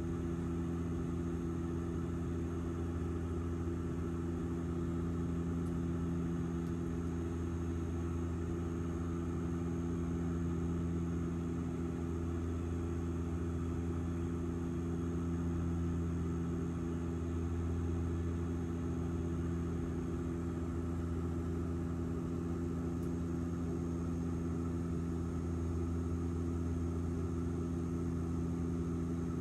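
Steady drone of an airliner's engines heard from inside the passenger cabin, a constant low hum with a few steady tones and only slow, slight swells in loudness.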